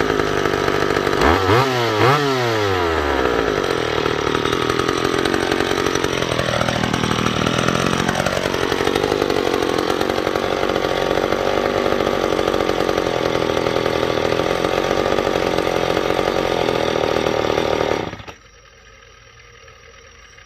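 McCulloch two-stroke chainsaw engine running, blipped up and down twice about a second in, then running steadily at speed before it is shut off suddenly about 18 seconds in.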